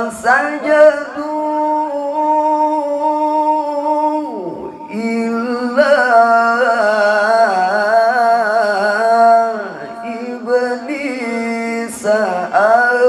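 A man's voice in melodic Quran recitation (tilawah), holding long sustained notes with wavering ornamented runs, amplified through a handheld microphone. About four seconds in the voice slides down and breaks off briefly before starting a new held note.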